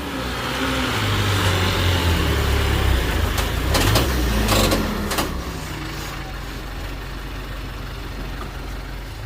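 A large vehicle's engine running, louder through the first half, with a few sharp clatters about four to five seconds in. It then settles to quieter, steady running.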